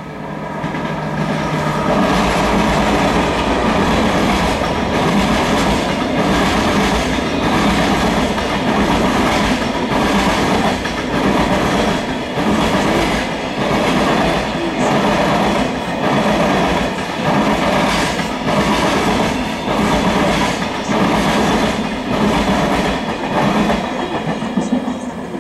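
Container freight train passing close by: steady rolling noise of the wagons, with the wheels clacking over rail joints in a regular rhythm. It builds up in the first couple of seconds and eases off near the end as the last wagons go by.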